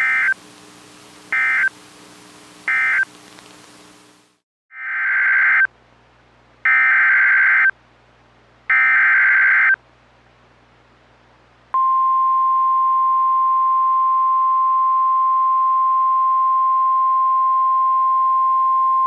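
NOAA Weather Radio emergency alert tones: three short screeching SAME digital data bursts (end-of-message), then three longer SAME header bursts about five seconds in, announcing the next severe thunderstorm warning. At about twelve seconds in, the steady 1050 Hz weather radio warning alarm tone starts and holds.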